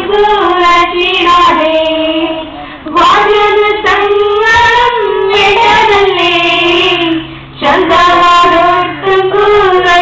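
A young female voice singing a song in Malayalam, long held notes that glide between pitches, in phrases broken by short pauses about three seconds in and again near the end.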